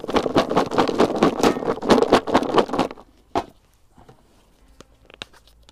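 A particle bait mix of tiger nuts, maize, wheat and hemp rattling as it is shaken hard in a lidded plastic bucket to coat it in bait powder. The rattling stops about three seconds in, followed by a single knock as the bucket is set down, then a few light handling clicks.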